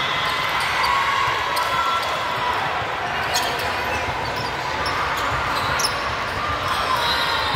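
Volleyball rally on a gym's hardwood court: the ball is struck sharply about three times, the last near the end, while sneakers squeak briefly on the floor over a steady hubbub of players and spectators.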